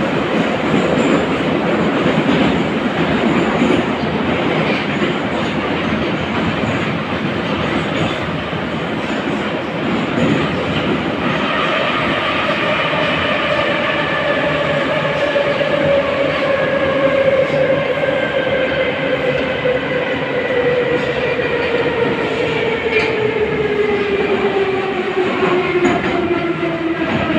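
Inside a moving 81-541.2 metro car: a steady rumble and clatter of wheels on rail. From about eleven seconds in, a motor whine rises above it and falls steadily in pitch as the train slows for the next station.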